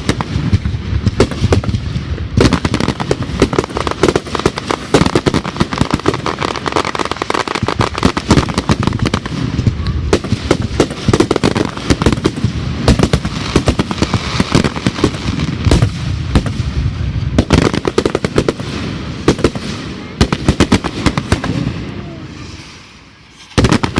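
Fireworks going off in rapid succession: a dense barrage of bangs and crackling. It eases off about 22 seconds in, then a fresh volley of bangs starts just before the end.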